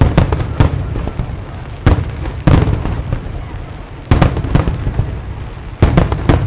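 Aerial firework shells bursting in a display: about nine loud bangs, mostly in pairs, the last three coming in quick succession near the end, each followed by a rolling, echoing rumble.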